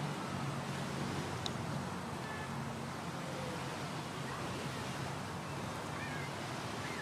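Steady wash of surf with wind on the microphone, under the low hum of a motor vehicle's engine that fades away over the first few seconds.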